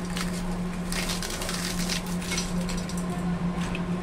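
Fried papads (papadum) being broken by hand into a stainless steel bowl: repeated crisp crackling and snapping of the brittle wafers.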